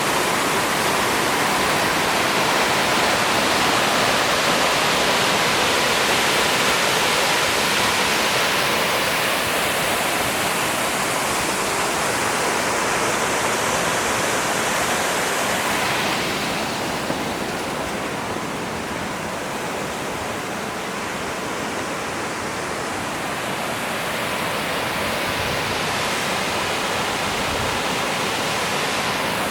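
Water pouring over a small dam spillway on a creek: a steady rushing that gets somewhat quieter a little past halfway.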